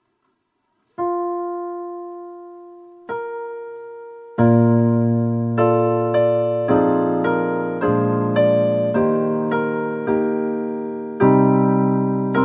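Keyboard playing a song's introduction in a piano sound. A single note rings out about a second in and another about two seconds later, then full chords are struck roughly twice a second, each ringing and fading.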